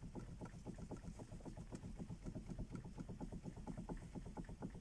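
Toyota Camry XV40 steering intermediate shaft (steering cardan) knocking: a rapid, even string of light knocks, about six a second. The knock comes from wear in the shaft's splined joint, not from the steering rack.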